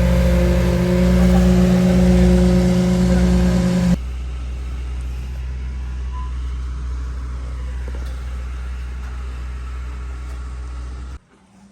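Concrete mixer truck's diesel engine running steadily. About four seconds in it drops abruptly to a quieter, steady low rumble, which cuts off near the end.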